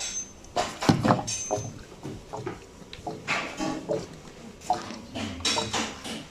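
Injector cleaner glugging out of its bottle into the car's fuel tank filler neck, in an irregular run of gurgles and small clicks.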